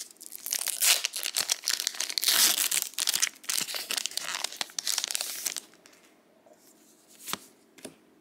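Foil wrapper of a Disney Lorcana booster pack being torn open and crinkled, a dense crackling that stops about five and a half seconds in. Two faint ticks follow near the end.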